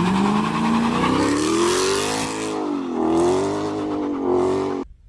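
A car engine accelerating hard, its pitch climbing, dropping briefly twice as it shifts up through the gears, then cut off abruptly near the end.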